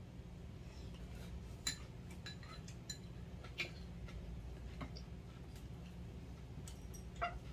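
Metal spoons and chopsticks clicking and clinking against bowls as two people eat: about half a dozen scattered sharp clicks over a low steady hum.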